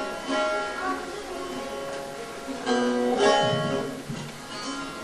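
A bağlama (long-necked Turkish saz) plucked in scattered single notes and short runs rather than a running tune, as when the instrument is checked or tuned between pieces; the loudest notes come a little before the middle.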